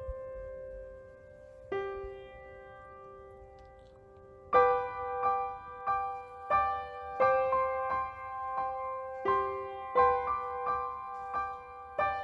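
Background piano music: a couple of sustained chords, then from about four seconds in a steady run of notes at a little under two a second.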